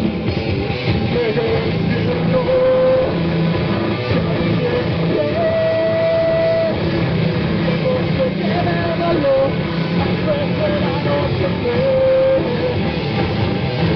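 Distorted rock band playing an instrumental passage: a lead guitar picks out a melody of held, bending notes over heavy rhythm guitar and drums.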